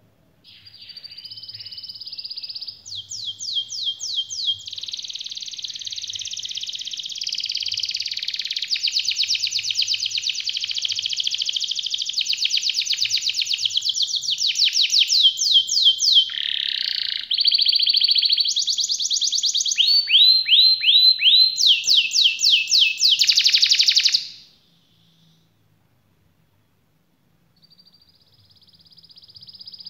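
Canary singing a long, loud song of fast trills and rolls, runs of rapidly repeated high notes one after another. It stops about 24 seconds in, and after a few seconds' pause it starts singing again near the end.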